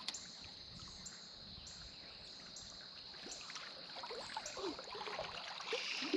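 Creek water running and lapping, with light splashing that grows a little louder in the last couple of seconds, over a steady high-pitched hum.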